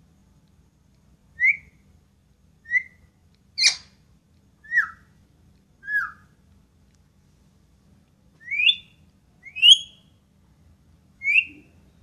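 Indian ringneck parakeet giving eight short whistled calls, some rising and some falling in pitch, with one harsher screech about four seconds in.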